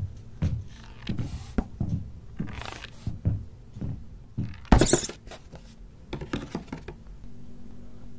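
Irregular light knocks and scrapes against cardboard, with a sharper knock about five seconds in, then a steady low hum near the end.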